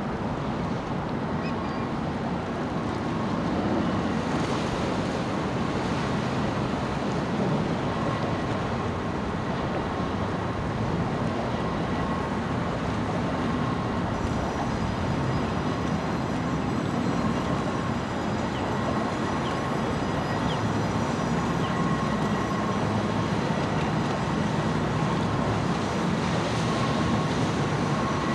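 Steady mechanical rumble as the railroad bascule bridge's leaf is raised, mixed with small outboard motorboats running past, with a faint intermittent whine.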